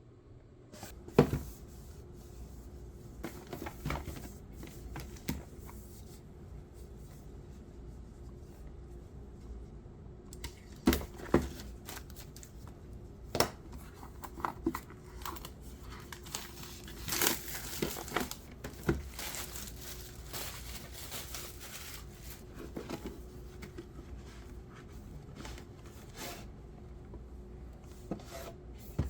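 Packaging being torn open and crinkled by hand: irregular tearing and crumpling rustles with sharp snaps, busiest midway through.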